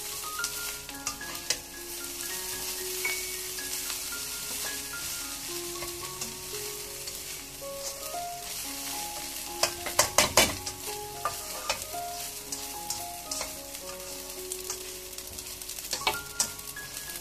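Fried rice sizzling in a wok as it is stir-fried, with the spatula scraping and stirring through it. A cluster of loud clacks comes about ten seconds in and a few more near the end, as the spatula knocks against the pan.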